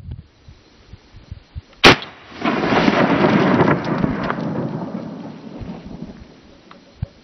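A single gunshot about two seconds in, followed by a long rumbling echo that swells and then dies away over about three seconds.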